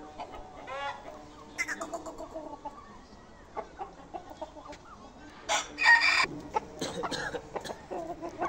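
Aseel chickens clucking in a run of short calls, with a loud, brief burst about six seconds in.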